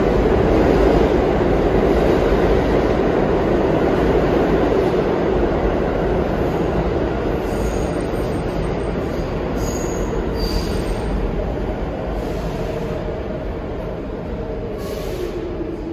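New York City subway train running through an underground station, its rumble steadily fading as it moves away. A few brief high wheel squeals come about eight to eleven seconds in.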